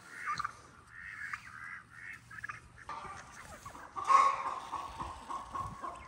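Domestic fowl calling: a quick run of short calls, then from about three seconds in a longer, steadier call, loudest about four seconds in.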